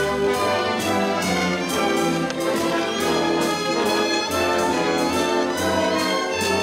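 Full orchestra playing a waltz, with the brass section (trumpets and trombones) prominent over a steady beat.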